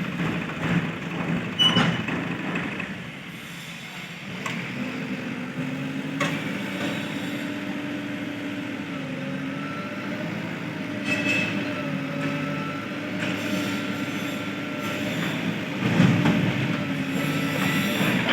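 Heavy-machinery diesel engine running, its pitch wavering and stepping slightly, with a few knocks and clanks.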